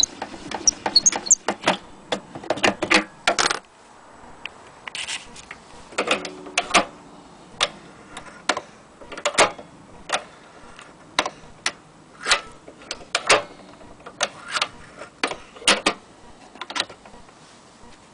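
Irregular clicks and knocks from handling a vintage HMV Model 102 portable gramophone's case, lid pocket and fittings.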